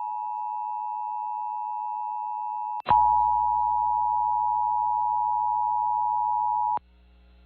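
Emergency Alert System attention signal: a steady two-tone alert tone. About three seconds in it breaks off briefly and comes back louder with a mains hum underneath, then cuts off suddenly near the end, leaving only a low hum.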